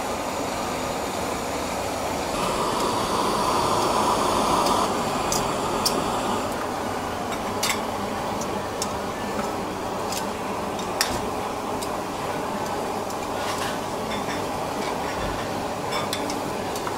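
Scallop sizzling and bubbling in its shell on a grill over a flame: a steady hiss with scattered sharp crackles and clicks. A brighter hiss swells for a couple of seconds shortly after the start.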